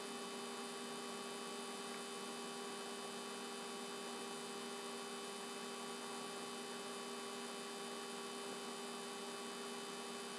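Steady electrical hum made of several fixed tones over a constant hiss, unchanging throughout.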